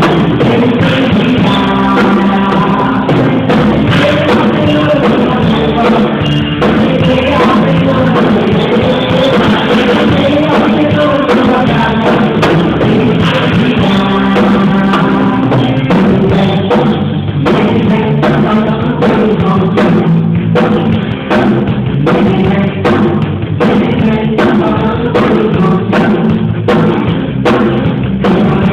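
Full-band worship music with drum kit and singing, in a steady rock beat.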